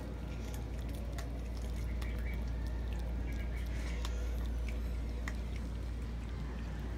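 Cats chewing and eating tilapia, small wet clicks and smacks scattered throughout, over a steady low hum.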